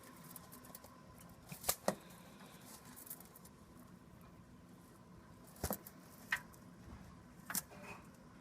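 Faint rain hiss with a few scattered sharp ticks: a pair about two seconds in and three more in the second half.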